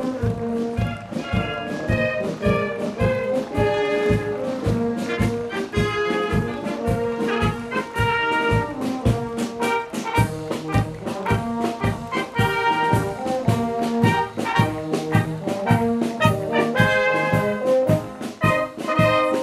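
Tyrolean brass band playing a march on the move: flugelhorns, trumpets and tenor horns in several parts over a steady beat.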